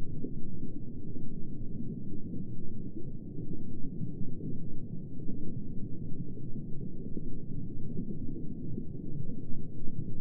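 Muffled underwater ambience: a steady, low, rumbling wash with no sharp or high sounds, as heard by someone submerged.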